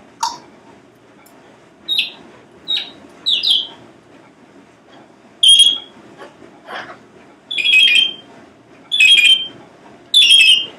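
Parrot giving a series of short, high whistled calls with a harsh, alarm-like edge. Small ones come first, then four louder, longer ones spaced a second or two apart in the second half.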